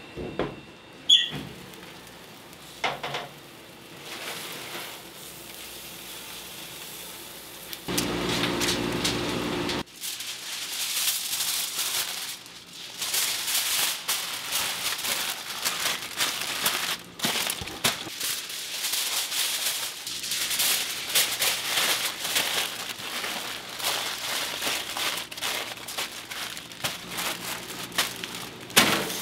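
Irregular crackling and sizzling of barbecue cooking over a fire, going steadily from about ten seconds in, just after a brief low hum.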